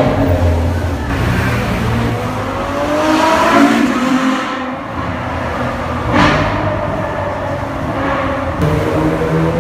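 Supercar engine accelerating hard through a road tunnel, its note climbing in pitch over the first few seconds as the car passes, with a sudden sharp burst about six seconds in. A steadier, lower engine note comes in near the end.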